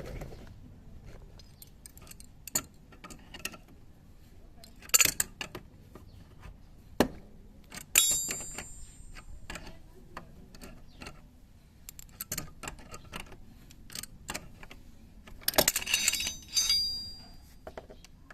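Metal hand tools and small metal parts clicking and clinking during scooter gearbox bearing work, with two louder metallic clanks that ring on, about eight seconds in and again near the end.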